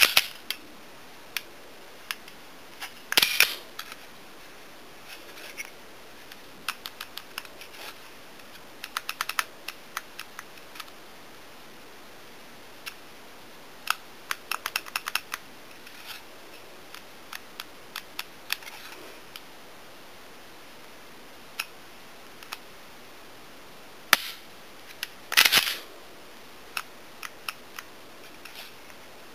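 Glock 23 .40-calibre pistol being handled: scattered sharp clicks of its trigger and action being worked, with two louder clusters of clacks, one about three seconds in and one a few seconds before the end.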